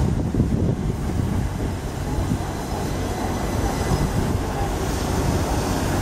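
Southern passenger train running past close by on the near track: a steady rumble of wheels on the rails.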